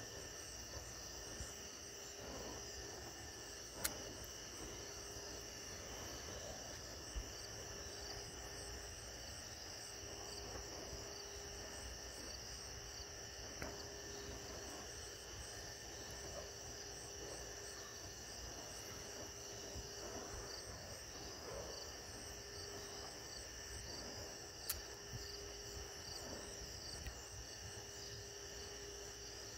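Crickets chirring steadily over a low outdoor rumble, with a few isolated sharp clicks.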